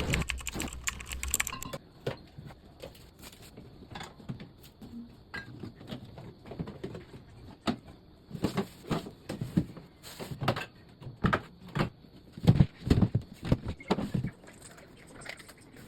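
Groceries being handled and put away: irregular light knocks, clicks and rustling of packaging, with a few louder thumps as items are set down.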